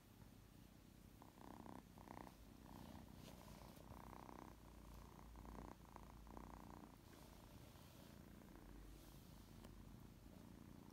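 Kitten purring faintly, with a soft, evenly pulsing rhythm.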